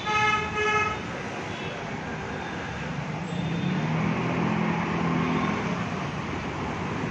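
A vehicle horn honks twice in quick succession at the start, then steady street traffic noise, with an engine running close by from about three seconds in.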